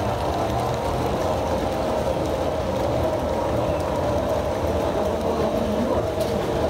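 HO scale model coal hopper cars rolling past on the track: a steady, even noise of small wheels running on rail.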